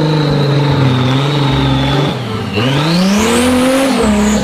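Off-road 4x4's engine pulling through mud, holding a steady note, then revving up about two and a half seconds in and easing off near the end.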